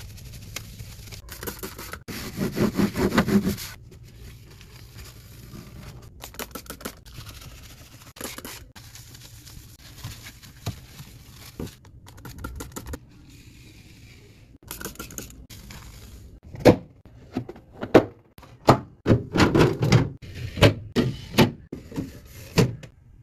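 Items being handled and set down while a mini fridge is restocked: a run of thunks, knocks and scrapes, busiest and loudest in the last seven seconds.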